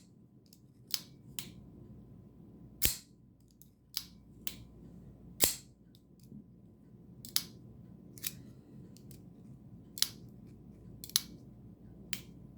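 Gerber FAST Draw assisted-opening folding knife flicked open with the thumb stud and closed again, over and over: a string of sharp metallic snaps and clicks, about one a second, a few of them louder than the rest.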